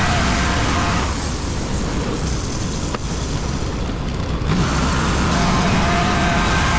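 WoodMizer LT35 portable band sawmill running and sawing a hemlock log, its engine and band blade working steadily. The higher part of the sound drops away for about three and a half seconds from about a second in, then returns.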